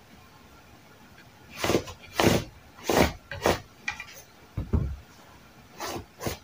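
Tailor's chalk and measuring tools being worked over denim fabric: a run of about eight short scrapes and knocks, starting about one and a half seconds in.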